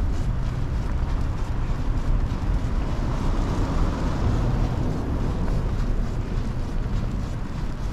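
Outdoor street noise with wind rumbling on the microphone, and a vehicle's hiss swelling and fading about three to five seconds in.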